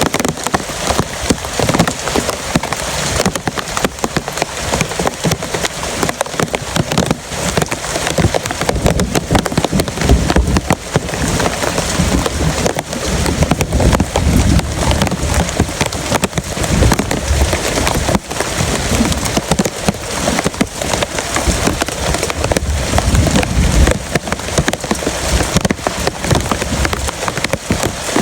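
Heavy rain pouring steadily, a dense patter of drops, with strong wind gusting as low rumbles through the middle.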